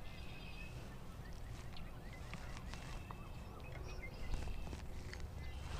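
Faint, scattered bird calls over a low, steady background rumble.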